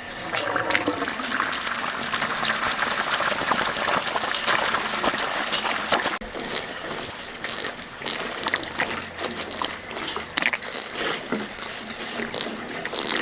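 Water running and splashing as drinking water is given to the young cattle. It pours steadily for about six seconds, then cuts off abruptly and turns into irregular splashing.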